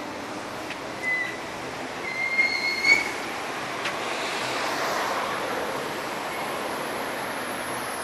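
Several short, high-pitched squeals in the first three seconds, then a swell of noise like a vehicle passing, rising to a peak about five seconds in and fading.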